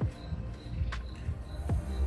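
Electronic music with heavy bass. Two hits sweep sharply down in pitch, one at the start and one near the end, over a short high blip that repeats quickly.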